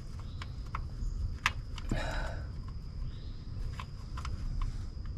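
Scattered light clicks and taps of a pick, fingers and the plastic sensor clip working the rear coolant temperature sensor loose from the back of a 2.5 L engine's cylinder head. The sharpest click comes about a second and a half in, over a low steady rumble and a faint steady high tone.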